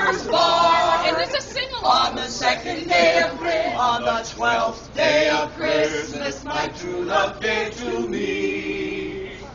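A small a cappella group of carolers singing in harmony, with no instruments, ending on a held chord about a second and a half before the end.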